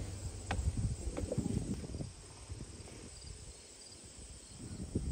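Outdoor ambience with faint insects chirping, over a low rumble and scattered knocks from the handheld microphone, quieter in the middle.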